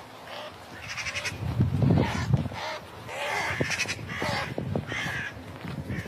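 Crows cawing repeatedly, harsh calls coming about once a second.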